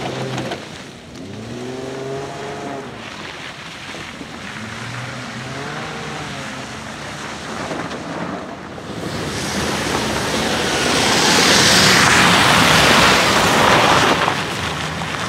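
Off-road Jeep Wrangler's engine revving in several rising pulls as it churns through mud. From about nine seconds in, a loud, even rushing hiss takes over and becomes the loudest sound.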